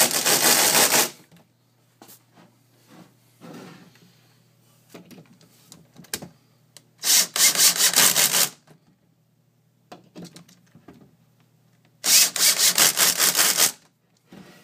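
Cordless drill driving hinge screws in three short bursts, each a rapid run of clicks as the drill's clutch slips and ratchets once the screw reaches the set torque, which keeps the screws from stripping. Light handling knocks between the bursts.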